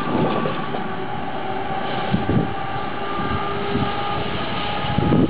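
DB Class 101 electric locomotive hauling Intercity coaches past, running with a steady whine from its traction equipment over the rumble of the wheels on the rails. A few louder knocks come through about two, four and five seconds in.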